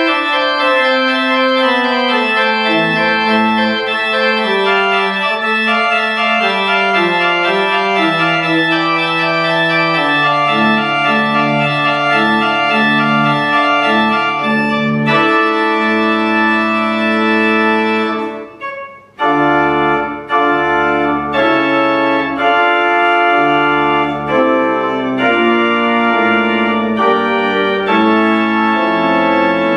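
Organ playing slow, sustained chords, the bass line stepping down through the opening; the music breaks off for about a second about two-thirds of the way in, then resumes.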